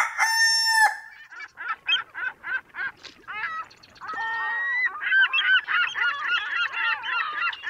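The tail of a rooster's crow, then many birds calling in quick, repeated honking calls that overlap.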